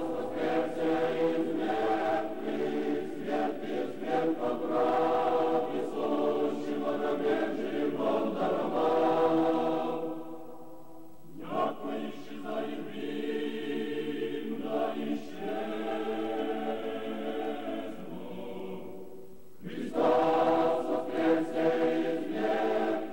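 A choir singing slow, sustained chant-like chords as soundtrack music. It breaks off briefly about ten seconds in and comes back louder near the end.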